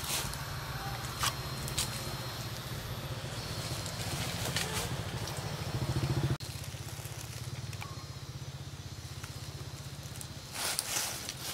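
A small engine idling with a steady low pulse, which drops abruptly in level about six seconds in and runs on more quietly. A few short crackles of dry leaves come and go over it, a cluster near the end.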